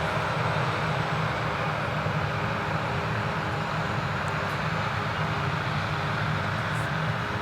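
Krone Big X 1100 self-propelled forage harvester running at full load while it cuts and chops triticale, a steady, dense engine and chopper noise with a faint steady hum.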